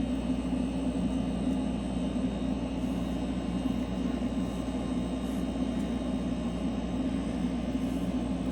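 A machine running with a steady, unchanging drone: a low hum with a faint high whine over it.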